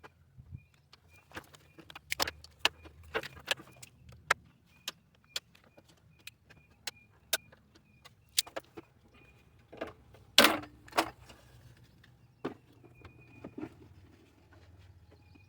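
Irregular sharp clicks and knocks of tools or parts being handled during work on the car, the loudest about ten and a half seconds in.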